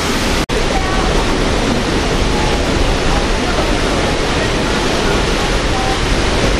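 Steady rushing of wind and water heard from the deck of a moving ferry, cutting out for an instant about half a second in.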